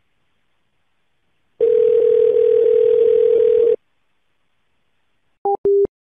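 Telephone line tone heard over the phone line: one steady tone lasting about two seconds, then two short beeps near the end.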